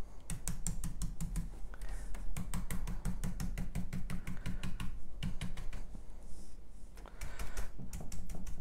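Stencil brush being pounced up and down through a stencil onto a stool top: quick dry taps, several a second, in runs broken by short pauses.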